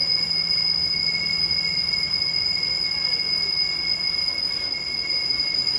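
Steady high-pitched whine holding two constant tones, over a low hum and background noise. The hum fades out about four seconds in.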